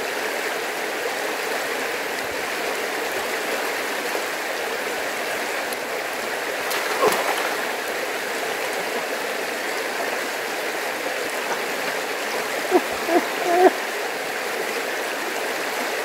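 Shallow rocky stream running over stones and small cascades, a steady rush of water. A few brief pitched sounds rise above it about halfway through and again, louder, a little before the end.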